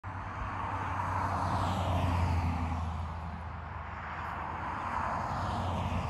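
Distant chorus of Brood X periodical cicadas: a higher-pitched drone that swells and fades twice, over a low steady hum.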